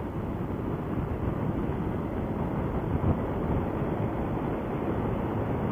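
Honda Forza 300 scooter cruising at road speed: a steady rush of wind and riding noise over the rider's camera microphone, with no distinct engine pitch standing out.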